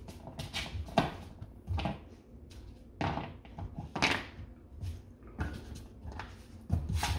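Golden retriever puppy pawing and batting a Whimzees alligator dental chew around a hardwood floor: irregular knocks and clatters of the chew and paws hitting the wood, about one a second, the loudest about a second in and again near the middle.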